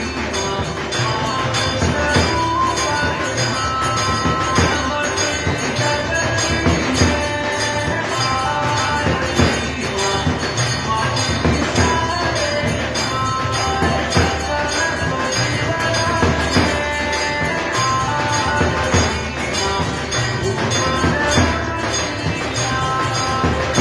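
Hindu devotional aarti music with held melodic notes.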